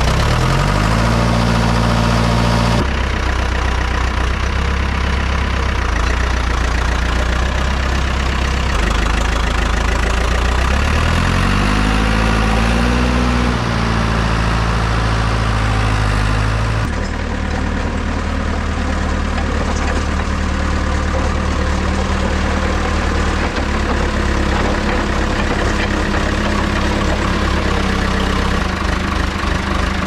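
John Deere 450 bulldozer's engine running, revving up shortly after the start and again about eleven seconds in, then settling back to a steady run. The sound changes abruptly twice, at about three and seventeen seconds.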